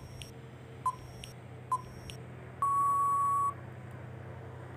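Countdown timer sound effect: two short beeps about a second apart, then one long beep lasting almost a second that marks time up, over a faint low hum.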